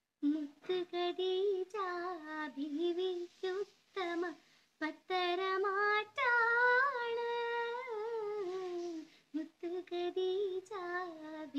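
A girl singing a Malayalam Eid song solo with no accompaniment, close into a clip-on microphone, a wavering ornamented melody with one long held note in the middle and short breaks for breath.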